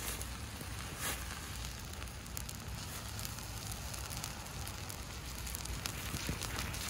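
Molten aluminum pouring from a crucible into a fire ant mound, sizzling and crackling steadily with scattered pops as it meets damp soil and grass. A louder pop comes about a second in.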